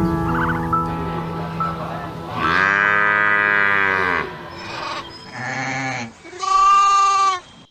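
Farm animals calling over background music: a long call that rises and falls about two and a half seconds in, then a short call and a louder bleat near the end.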